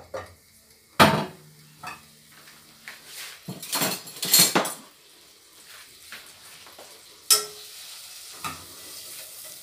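Metal kitchenware clattering as a stainless-steel bowl and a saucepan are handled on the stove and counter. There is a sharp clink about a second in, a burst of clattering around four seconds in, and another clink about seven seconds in.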